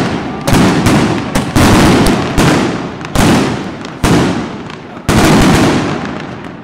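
Mascletà firecrackers (masclets) exploding in a dense, continuous barrage of bangs, with a heavy blast about once a second, each trailing off before the next.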